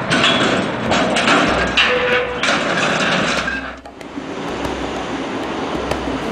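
Demolition excavator's hydraulic crusher biting into concrete: dense crunching and cracking over the machine's low engine rumble. Just before four seconds in it cuts to a quieter, steady machinery noise.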